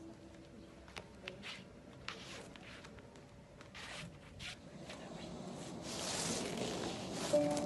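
Soft scuffs, light clicks and brief rustles of a person moving on a mat, with a longer soft hiss swelling near the end.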